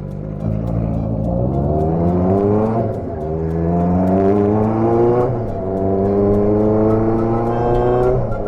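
Motorcycle engine accelerating up through the gears: its pitch rises three times, dropping back at each upshift in between.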